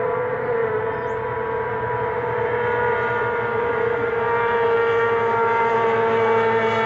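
Racing hydroplane engine running flat out, a steady high-pitched whine that grows slightly louder toward the end.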